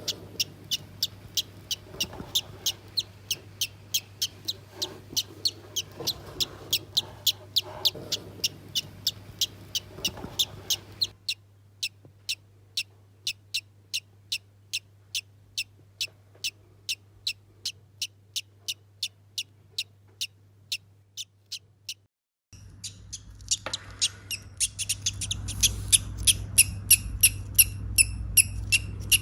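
Parrot chick peeping in a steady, even rhythm of short high chirps, about two and a half a second, over a low steady hum; the background changes abruptly about eleven seconds in and drops out briefly near twenty-two seconds.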